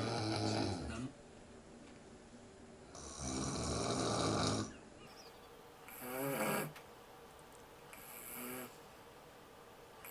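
A man snoring while asleep sitting up, with a long rasping snore at the start and another about three seconds in, then shorter, quieter sounds.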